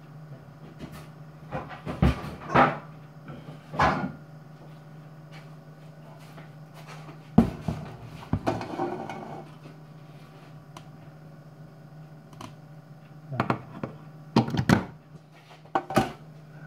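Scattered knocks and short clatters of kitchen things being handled and set down on a counter, with a steady low hum underneath.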